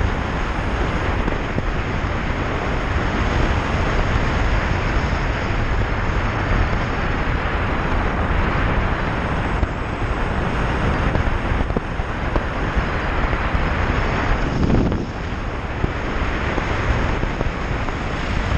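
Steady rush of wind over the microphone of a moving motorcycle, with engine and road noise underneath.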